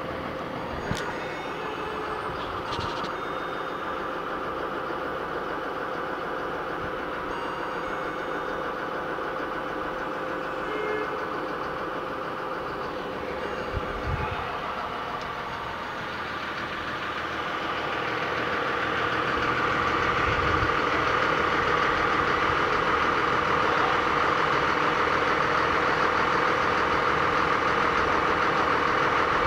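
Diesel engines of a dump truck and a skid-steer loader running steadily with a constant hum. The engine noise grows louder a little past halfway and stays loud.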